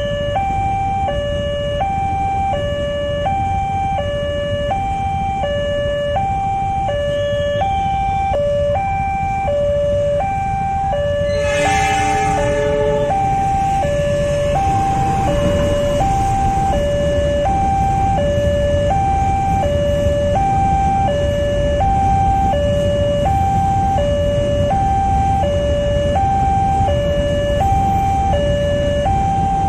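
Railway level-crossing alarm sounding two alternating tones over and over, over the steady low rumble of passing trains and waiting motorcycles. A short horn blast about twelve seconds in.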